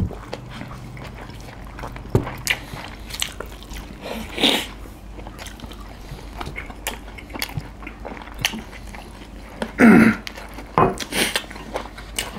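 Chewing and mouth sounds of people eating chicken biryani by hand, with many small clicks and scrapes from fingers working rice on steel plates. A couple of louder brief sounds come about four seconds in and again near ten seconds.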